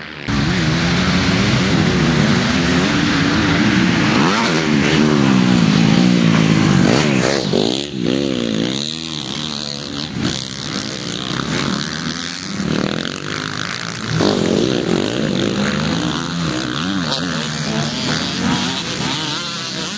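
Several motocross bikes racing past, their engines revving hard with pitch rising and falling as riders open and close the throttle and shift over a jump. The engines overlap, loudest in the first seven seconds, easing about eight seconds in and swelling again about fourteen seconds in as more bikes arrive.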